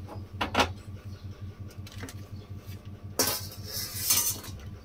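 Clay tray and small earthenware bowls knocking as they are set down on a stainless-steel stovetop: two light knocks just after the start, then two longer scraping, rustling handling noises past the three-second mark, over a steady low hum.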